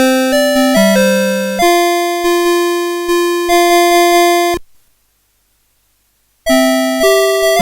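Citizen Melody Box 30 series alarm clock playing its electronic alarm melody in beeping tones. A run of short notes ends on one long held note, then after nearly two seconds of silence the melody starts again.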